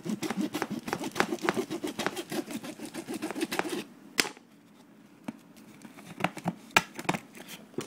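A knife cutting through packing tape on a cardboard box: a quick run of sawing, scraping strokes for about four seconds, then one sharp click and a few scattered scrapes and clicks.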